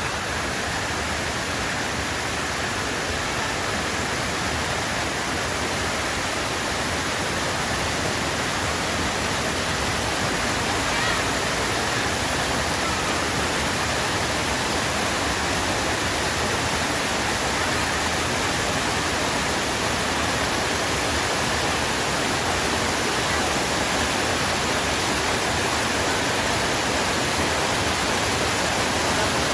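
Steady, unbroken rushing of water, even and loud, without any wave-like rise and fall.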